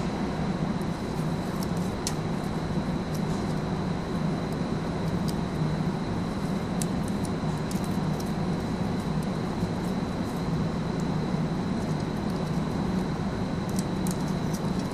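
Steady low hum and noise, with a thin high-pitched whine and a few faint light clicks scattered through.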